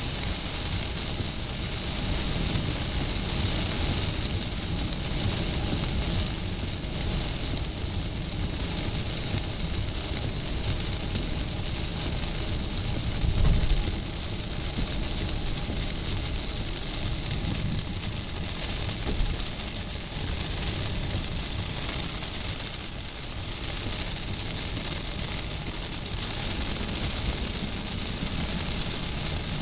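Heavy rain hitting a car's windshield and roof, heard from inside the cabin over steady road and engine noise. About halfway through comes a brief low rumble.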